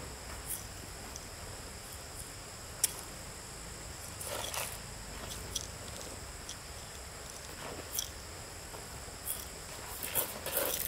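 A steady high-pitched chorus of insects such as crickets, with scattered light knocks and rustles: a sharp click about three seconds in and a cluster of handling noises near the end.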